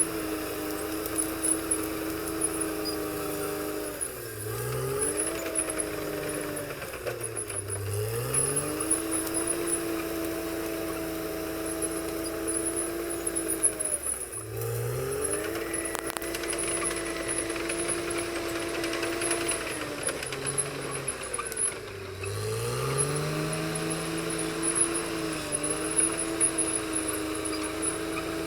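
CAT D6R XL bulldozer's diesel engine working under load: its pitch drops and climbs back four times as the engine is pulled down and recovers. Steel tracks and blade clank and rattle throughout.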